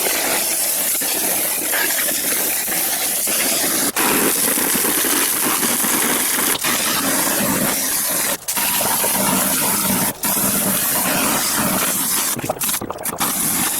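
Garden hose spraying water in a steady hiss over a CRT television, cutting out for a moment several times and stuttering on and off near the end.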